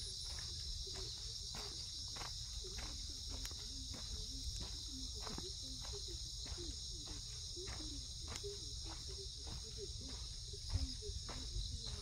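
A steady, high-pitched chorus of insects, with regular footsteps on a dirt path about two a second.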